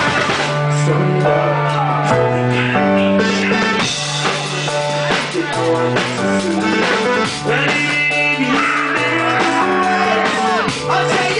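Live rock band playing loudly, with drum kit and guitar, and some singing.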